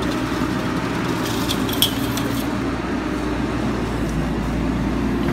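Tracked excavator's diesel engine running steadily, with a few light metallic clinks about a second and a half to two and a half seconds in.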